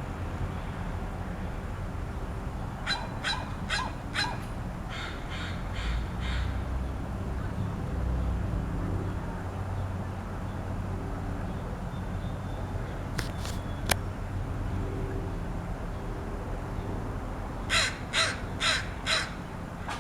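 Crow making unusual calls in quick runs of short repeated notes, about three a second. One run comes about three seconds in, softer notes follow, and a louder run of five comes near the end.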